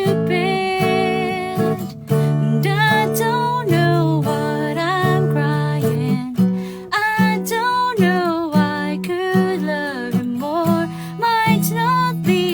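Music: an acoustic guitar playing a wavering melody line over held low chords, with no sung words.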